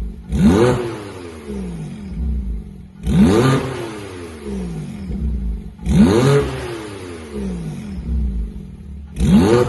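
Manhart-tuned 2018 Porsche 911 Turbo twin-turbo flat-six blipped from idle four times, about every three seconds, each rev climbing quickly and then falling back to idle.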